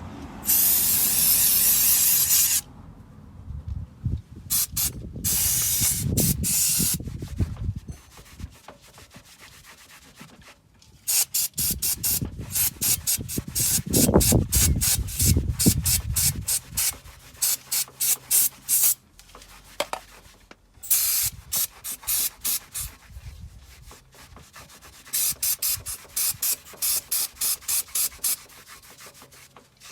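A short hiss of aerosol spray lasting about two seconds, then long runs of quick back-and-forth hand scrubbing strokes, a few per second, as car brake parts are cleaned.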